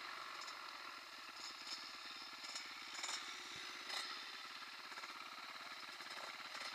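Dirt bike engines idling with a rapid, even putter, and a few light clicks about three and four seconds in.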